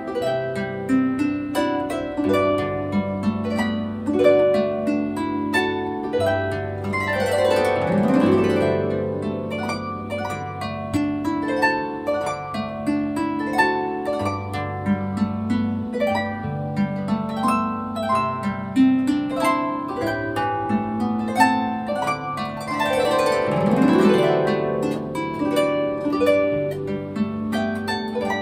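Solo concert harp playing a gentle plucked melody over sustained low bass notes. Twice it makes a quick sweeping glissando across the strings.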